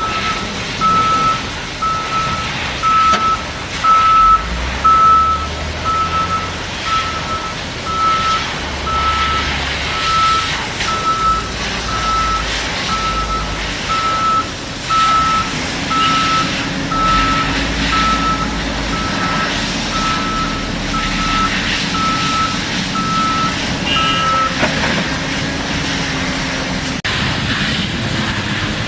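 Reversing/travel alarm on a Doosan excavator beeping at a steady, even rate over the running diesel engine and machinery noise. The beeping stops about four seconds before the end, while the engine keeps running.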